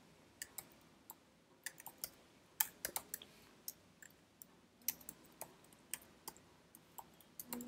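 Computer keyboard keystrokes as a command is typed: faint, irregular clicks, some in quick runs and some spaced out.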